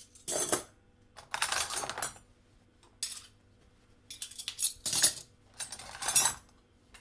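Metal cutlery clattering and clinking in several short bursts with quiet gaps between them.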